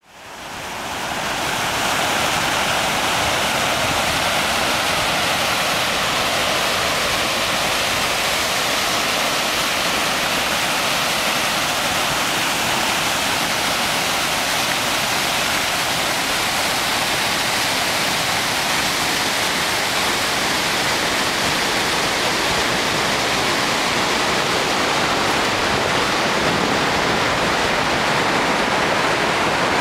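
A flooded river's water pouring over a concrete intake weir and through its sluice channel: a steady, loud rush of falling and churning water that fades in over the first two seconds.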